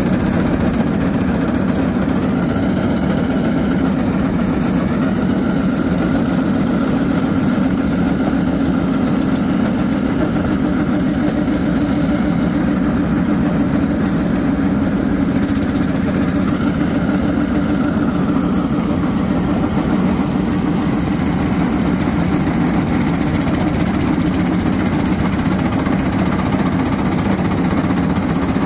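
Small engine of a motorized railcart running steadily as the cart rolls along the rails, a constant low drone.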